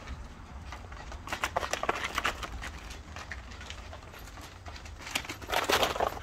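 Two dogs play-fighting: paws scrabbling and running on the turf with scuffling bodies. It comes in two bursts, about a second and a half in and a louder one near the end.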